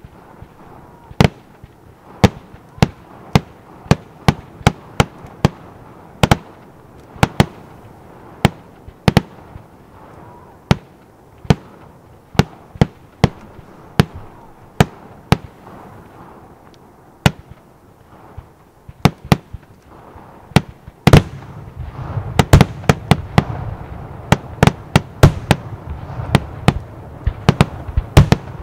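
Aerial fireworks bursting in a steady series of sharp bangs, about one to two a second. About 21 seconds in they give way to a denser barrage: rapid bangs over a continuous low rumble.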